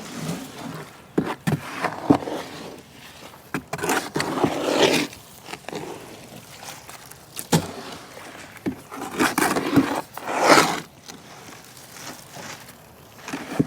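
Wet concrete being mixed by hand in a large wheelbarrow: a tool scraping and dragging through the mix in a few long strokes, with sharp knocks between them.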